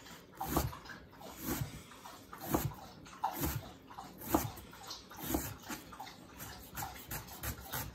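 Chef's knife dicing a red onion on a cutting board: a series of short knife strikes against the board, the strongest about once a second with lighter taps between.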